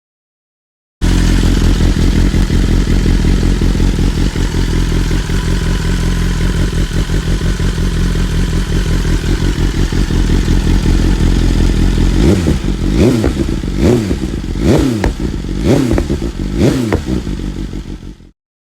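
BMW S1000RR inline-four motorcycle engine idling through an aftermarket exhaust. In the last six seconds the throttle is blipped five times, each rev climbing and dropping back quickly, before the sound cuts off.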